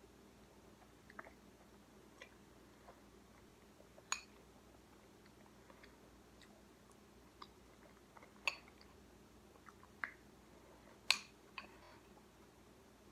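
Metal spoon clinking against a ceramic cereal bowl, with quiet chewing of cereal: a handful of short, sharp clicks spread out with quiet gaps between, the loudest near the end.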